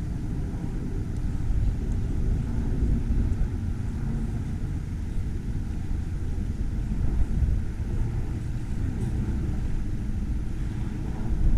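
Outdoor ambience: a steady low rumble with an uneven, fluctuating level.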